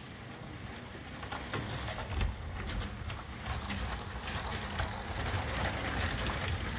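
Remote-controlled LEGO train's electric motor running on low batteries and its wheels rolling over plastic LEGO track, a rumble that grows louder about two seconds in as the train comes past, with light clicks.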